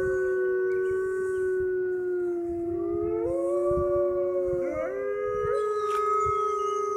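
A pack of arctic wolves howling together: several long, held howls at different pitches overlap, with new voices sliding up to join about three and five seconds in.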